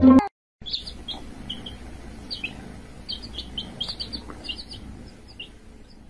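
Many short, high-pitched chirps or squeaks from small animals, coming irregularly and thinning out toward the end, over a low background rumble. A snatch of music cuts off just at the start.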